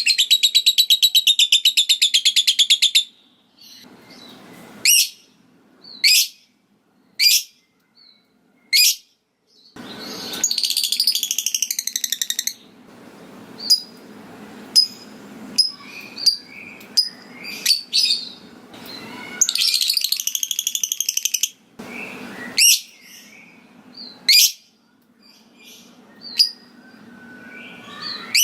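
Lovebird calling: a long, rapid, shrill chattering trill (the 'ngekek') that cuts off about three seconds in. It is followed by sharp single high chirps roughly once a second, with two more shorter bursts of chatter about ten and twenty seconds in.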